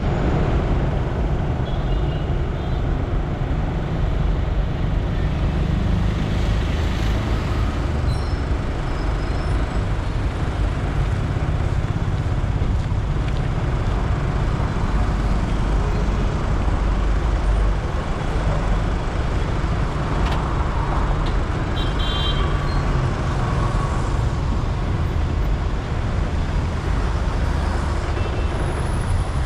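Road traffic on a busy city highway, heard from a moving vehicle: a steady rumble of engines and tyres. A few brief high-pitched tones sound over it.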